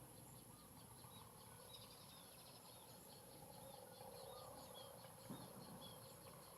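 Faint outdoor ambience with a small bird's repeated high chirps, a few each second, and one soft tap near the end.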